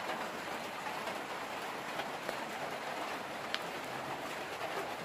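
Steady hissing background noise, much like rain falling, with a faint sharp tick about three and a half seconds in.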